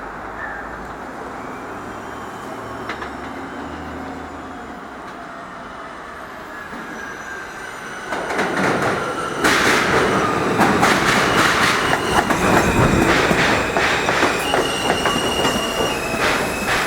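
New York City subway L train coming into the station. A motor whine falls slowly in pitch as it slows, then from about eight seconds in come loud wheel rumble, rapid clatter over the rail joints and high steady wheel squeals.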